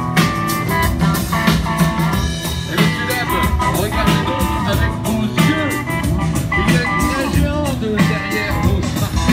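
Loud band music with a steady beat, pitched instruments over drums and some singing, from the street show's accompanying music band.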